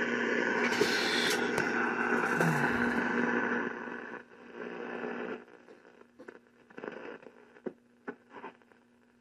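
Static hiss from the speaker of a Zenith Royal 1000 Transoceanic transistor shortwave portable tuned to a shortwave band with its rod antenna extended, which has raised the noise floor. The hiss fades out about four seconds in, leaving faint scattered crackles.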